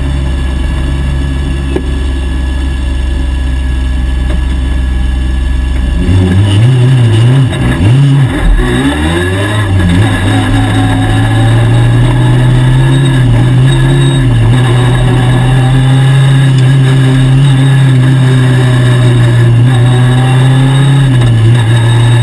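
VW Polo NEZ 1600 rallycross car's 1.6-litre engine heard inside the bare cabin: it idles steadily, then about six seconds in it revs up and down as the car pulls away, and settles into a steady drone at moderate revs, easing off briefly near the end.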